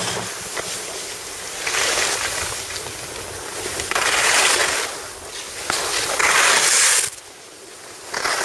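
Skis scraping over packed snow and wind rushing over the microphone during a downhill run, rising and falling in several loud swells, then dropping much quieter for about a second near the end before picking up again.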